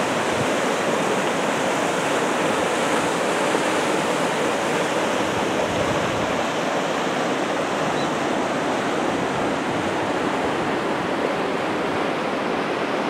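Waterfall rapids: fast, strong current rushing over rocks in a steady, unbroken roar of water.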